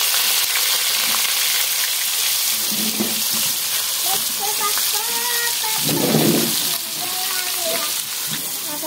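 Freshly added sliced onions and cumin seeds sizzling in hot oil in a kadhai, a steady frying hiss that eases slightly near the end.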